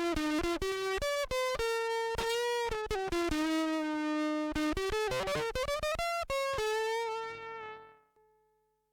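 Electric guitar played direct through a fuzz pedal, with no amp: a phrase of single sustained, distorted notes. The last note rings on and fades out about seven seconds in, then it goes silent.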